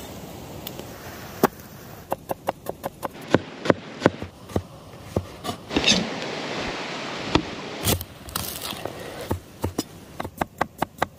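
Knife chopping food on a wooden cutting board: sharp chops, some in quick runs of about five a second, with a rougher noisy stretch in the middle.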